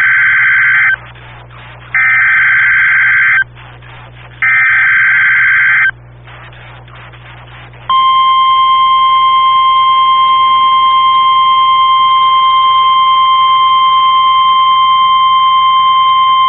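NOAA Weather Radio Emergency Alert System signal for a tornado warning. The tail of the first SAME header data burst is followed by two more, each about a second and a half of harsh digital warbling, with about a second of radio static between them. After a couple of seconds of static, the steady 1050 Hz weather radio warning alarm tone sounds for about nine seconds and cuts off abruptly.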